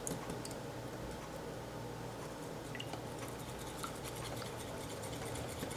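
Faint wet squishing and light scraping of eggs being stirred into flour in a mixing bowl, with a steady low hum underneath.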